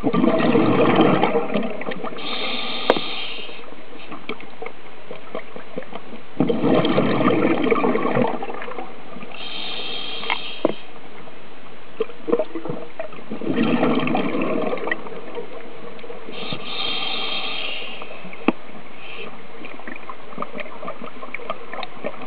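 Scuba diver breathing through a regulator underwater: three slow breaths, each a burst of exhaled bubbles followed by a short, higher inhale hiss, roughly every seven seconds. A steady underwater hiss with a few small clicks runs underneath.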